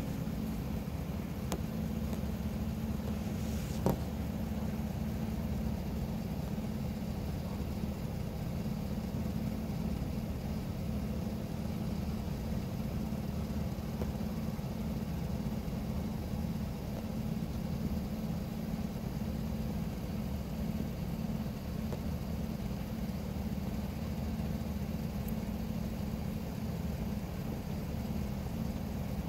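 A vehicle engine idling steadily, a low even rumble, with one short click about four seconds in.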